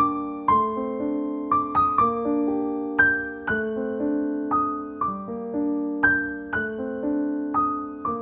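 Slow, gentle piano music: a simple melody over held chords, each note struck and left to ring out.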